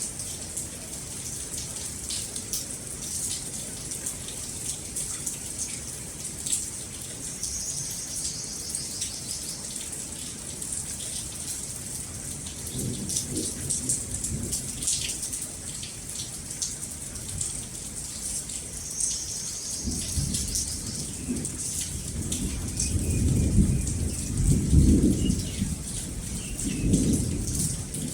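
Steady rain falling, with thunder rumbling low in the last third and loudest a few seconds before the end.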